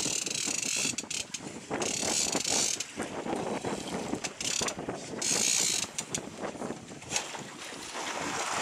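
Sea-fishing reel being wound in against a hooked small shark: irregular clicking of the reel's ratchet and gears, with wind rushing over the microphone.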